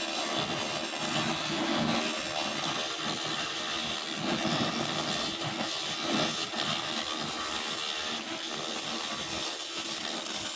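200 W pulsed fiber laser cleaner ablating dark marks off a wood surface: a steady, dense hiss with a fast flutter while the beam scans.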